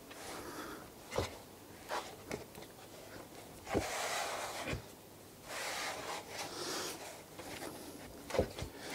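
Pizza dough being kneaded by hand on a wooden board: soft irregular thumps as the dough is pressed and pushed onto the wood, with stretches of rubbing and scraping of hands and dough over the floured board.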